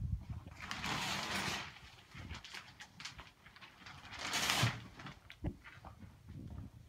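Shower curtain being pulled aside: two rustling, scraping swells, about a second in and again around four and a half seconds, with light knocks between.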